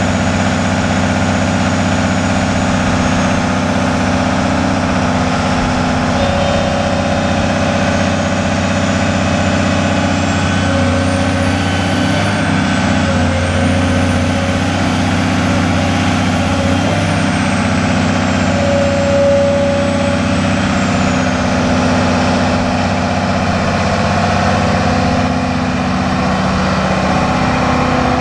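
Case CX330 excavator's Isuzu six-cylinder turbo diesel engine running steadily while the boom, arm and swing are worked. A faint high whine rises and falls in pitch through the middle of the run.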